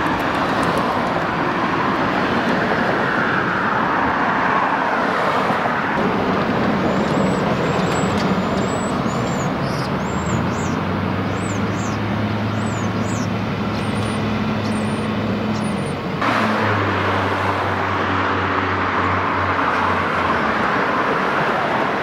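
Steady outdoor traffic and engine noise, with a low engine hum through the middle stretch.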